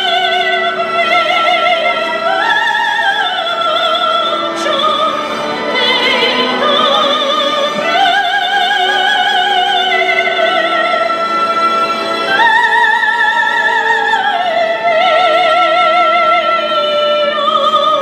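A woman singing solo into a handheld microphone: long held notes with a wide, even vibrato.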